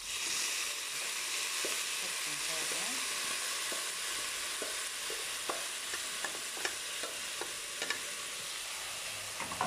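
Washed basmati rice poured into a hot steel pot of browned vermicelli, sizzling steadily from the moment it goes in, with scattered small pops and crackles.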